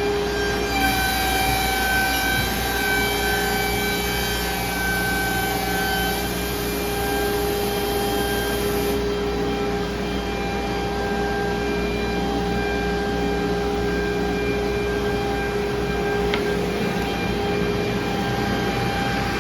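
CANTEK edgebander running with its freshly rebuilt glue pot: a steady motor whine made of several fixed tones over even machine noise, with a high hiss that stops about halfway through.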